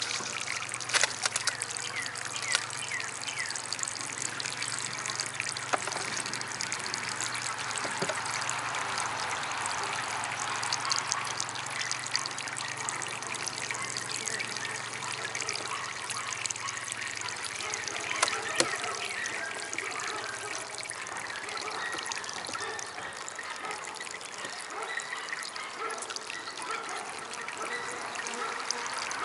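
Small DIY water fountain trickling steadily, with a few sharper drips or splashes now and then.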